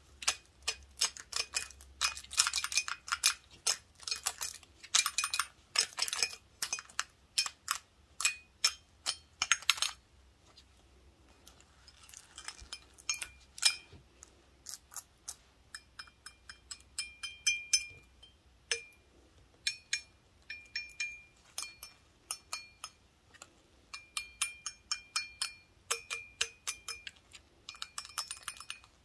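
Wooden toothpicks on gloved fingertips tapping a large empty glass beer stein. The taps come thick and fast for about the first ten seconds, then turn sparser and quieter, many of them leaving the glass ringing briefly with a clear pitch.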